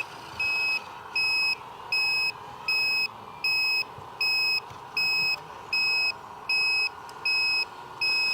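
Reversing alarm beeping at an even pace, about one and a half beeps a second, over a faint steady hum, typical of an RC truck's sound module backing up.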